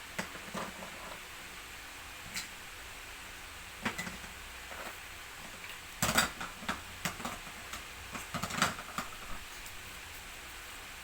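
Irregular light clicks and knocks of small toy pieces being handled and set down, with a busier clatter about six seconds in and again about eight and a half seconds in.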